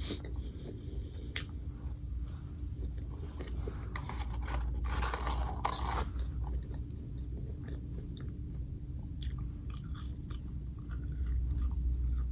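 A person chewing and biting fast food, with crunches now and then over a steady low hum.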